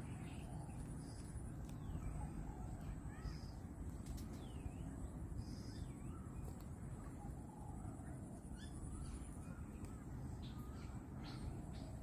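Outdoor ambience with birds giving short, scattered calls over a steady low rumble and a faint thin high-pitched whine. The swimming monitor lizard itself is not heard.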